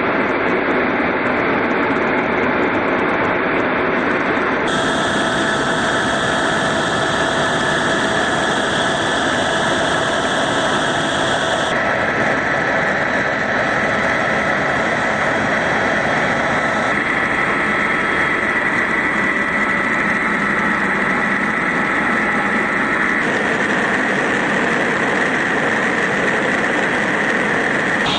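Helicopter cabin noise in flight: the steady rush and whine of the turbine engine and rotor. The tone shifts abruptly a few times along the way.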